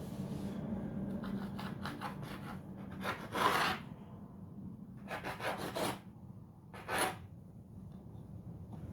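A blade cutting rolled-out half-cake dough into pieces on a board: a series of scraping strokes, the loudest about three and a half seconds in.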